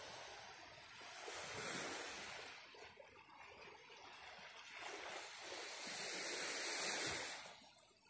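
Small waves washing gently onto a sandy beach, the hiss swelling twice and falling away sharply near the end.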